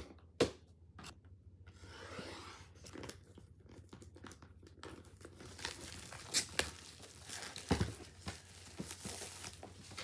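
Box packaging being torn open and crinkled by hand, with a stretch of tearing about two seconds in, then scattered crackles and a few sharp clicks.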